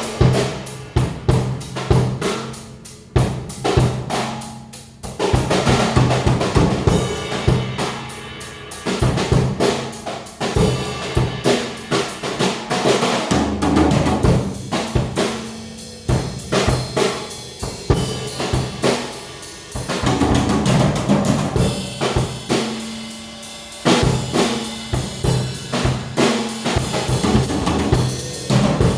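Drum kit being played, a continuous groove of bass drum and snare hits with rimshots, along with music.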